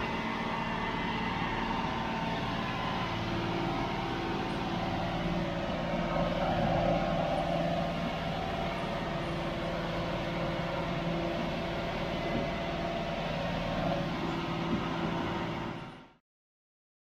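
Concrete mixer truck's diesel engine running with a steady hum, fading out about a second before the end.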